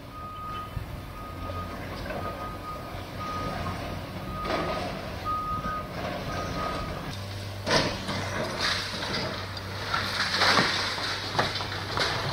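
Demolition excavator's diesel engine running with a reversing alarm beeping over it. About seven seconds in the beeping stops, the engine works harder, and concrete and brick crunch and crash repeatedly as the machine's jaws break up the building.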